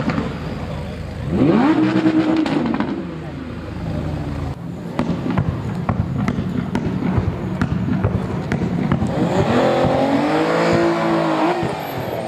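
High-performance car engine revved twice: the note climbs about a second in, holds briefly and drops back, then rises and falls again near the end. A run of sharp pops sounds between the two revs.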